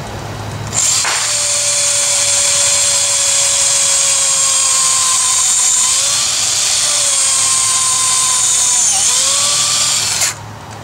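Handheld electric drill boring into the old wooden handle wedged in a sledgehammer's eye to break it out. It starts about a second in, runs steadily with its pitch sagging briefly twice as the bit loads up in the wood, and stops near the end.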